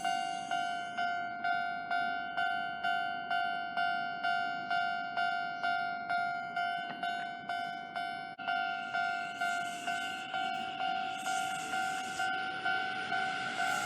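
Japanese railway level crossing warning bell ringing its repeated two-tone 'kan-kan', about two strikes a second. From about eight seconds in, the noise of a train joins it.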